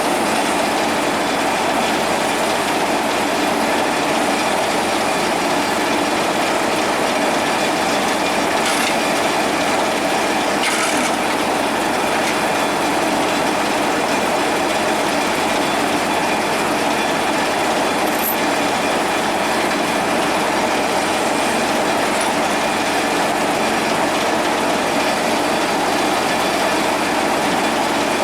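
Heavy diesel machinery running steadily under load, a continuous loud mechanical drone with a rattling undertone.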